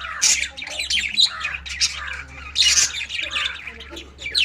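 Several birds calling at once in a busy, overlapping chatter of short, noisy calls. Louder calls stand out just after the start, a little after a second in, and near three seconds.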